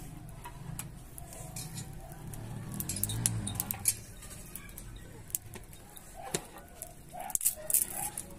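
Wood fire under an iron tawa crackling and popping, with scattered sharp snaps. There are light clinks of a metal utensil against the pan, and the snaps come thickest about halfway through and near the end.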